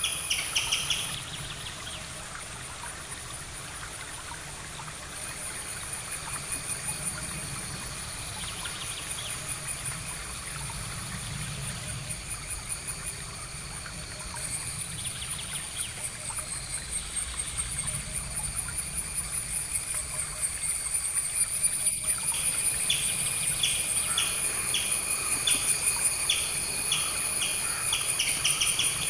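Outdoor nature ambience: a steady, high-pitched insect trill runs throughout. A bird repeats a short chirp over and over at the very start and again through the last several seconds.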